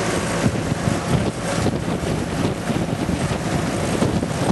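Riding lawnmower engine running steadily as it tows a trailer down a paved road, with wind buffeting the microphone.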